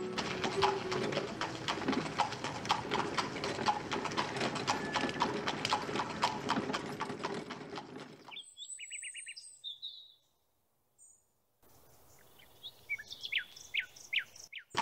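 Hooves of several horses clip-clopping on a street, a dense run of quick hoof strikes that stops about eight seconds in. After that, birds chirp, there is a short silence, and more bird chirps come near the end.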